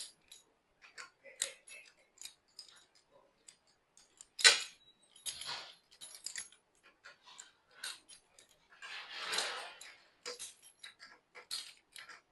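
Metal parts of an EK43 coffee grinder being handled during disassembly for cleaning: scattered light clicks and clinks, one sharper knock about four seconds in, and a short rustle about nine seconds in.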